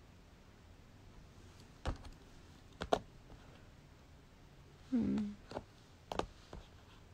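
A few scattered light clicks and taps in a quiet room, with a short hummed voice sound about five seconds in.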